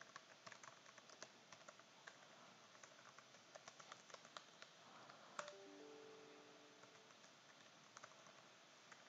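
Faint computer keyboard typing: quick, irregular keystroke clicks, with one louder click about halfway through.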